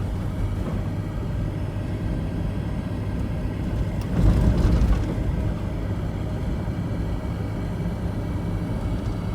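A third-generation Toyota 4Runner driving, its engine and road noise making a steady low rumble, with a louder rumble about four seconds in lasting about a second.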